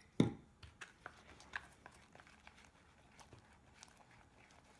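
A single thump just after the start, then scattered soft clicks and sticky squelches as slime is mixed and squeezed by hand in a bowl, just after borax activator has been added.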